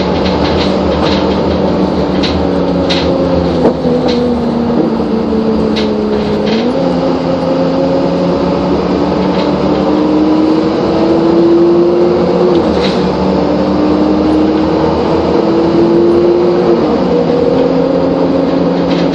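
Optare Solo bus's diesel engine heard from the passenger saloon while the bus is under way. Its note sags, jumps up about a third of the way in, then twice climbs steadily and drops back as the automatic gearbox changes up. Light clicks and rattles from the interior sound over it.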